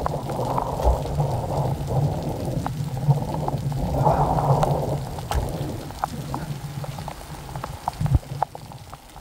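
Rain falling, with a low steady hum underneath. From about halfway, scattered sharp ticks of drops strike close to the microphone.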